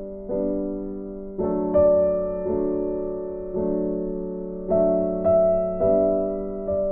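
Background music: slow, soft keyboard chords, a new one struck about once a second and left to fade.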